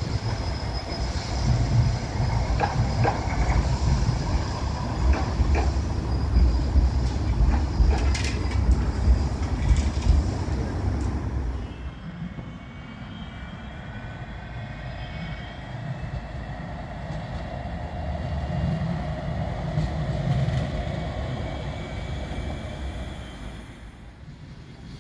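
Bombardier M5000 light-rail trams running in: wheels rumbling on the rails with sharp clicks over the track. About halfway through it cuts to a quieter tram pulling into a platform, with a thin whine from the tram.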